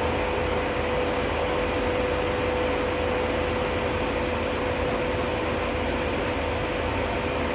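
Cabin noise of a car cruising at motorway speed: a steady roar of tyres and wind with a constant hum under it.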